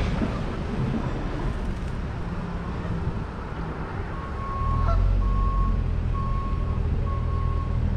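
A vehicle's reversing alarm beeping about once a second over a heavy engine running, both starting about halfway through; before that, general outdoor noise.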